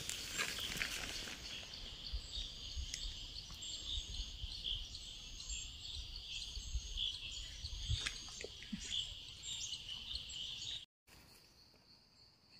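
Forest insects buzzing in a steady high band, with scattered small bird chirps over a low rumble. About eleven seconds in the sound cuts off and a quieter take follows, holding only a thin, steady, high insect tone.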